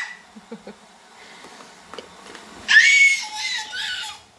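A toddler girl's short, very high-pitched squeal, a little past halfway, easing into a lower voiced sound before it fades; a few faint small clicks come before it.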